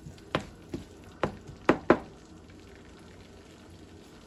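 A wooden spatula knocks sharply against a nonstick frying pan five times in quick succession, the last two loudest. After that a faint, steady sizzle of the onion-ginger-garlic masala paste frying in the pan.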